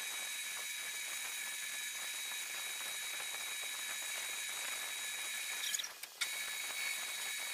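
Grizzly G4003G metal lathe running with a cast-iron back plate turning in the spindle while the carriage is hand-fed: a steady high whine with hiss. It breaks off briefly about six seconds in, then resumes.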